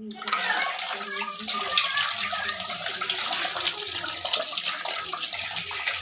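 Water running steadily from a tap, coming on abruptly just after the start.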